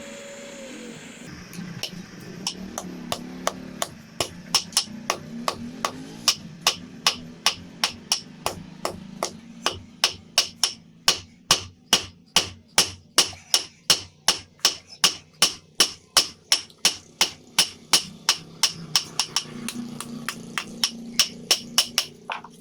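Blacksmith's hammer striking a heated piece of railroad-track iron on an anvil in a steady rhythm, about two to three blows a second, beating it into a knife shape. The blows start about a second and a half in and run on for some twenty seconds.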